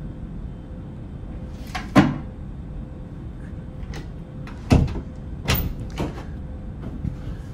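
A bathroom door being opened by its lever handle. There is a sharp knock about two seconds in, then a quick run of latch clicks and door knocks about five to six seconds in.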